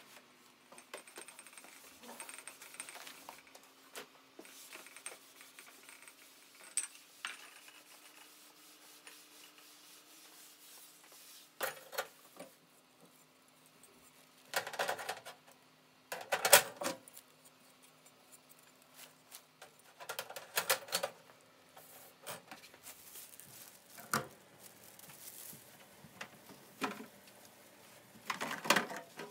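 Hard kitchen parts being handled during a clean-up: scattered light clicks, then several louder clattering knocks as the gas stove's metal grate and burner parts are moved and set down. Near the end comes a burst of scrubbing in a stainless-steel sink. A faint steady low hum sits under the first two-thirds.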